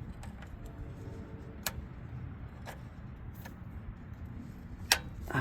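A few sharp clicks and taps of plastic and metal parts being handled as a shifter cable bushing is worked into place, the loudest near the end, over a low steady rumble.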